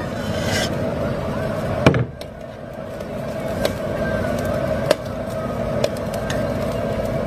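Mutton broth boiling in a metal karahi over a gas burner, with a steady rushing noise that drops a little about two seconds in. A ladle stirs the broth and knocks sharply against the pan several times.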